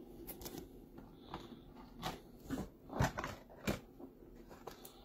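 Trading cards in plastic holders being handled and set down, making a scatter of light clicks and taps, with the two loudest a little past the middle.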